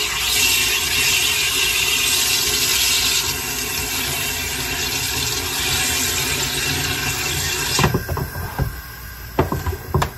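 SodaStream machine injecting CO2 gas into a bottle of cola mix: a long, loud, steady hiss that cuts off about eight seconds in, followed by a few short knocks and clicks.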